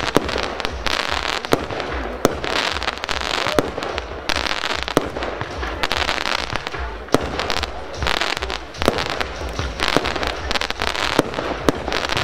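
Evolution Fireworks 'Ice Queen' 36-shot cake firing: dense crackling from its popping-flower crackling stars swells and fades in waves, with sharp bangs every second or two.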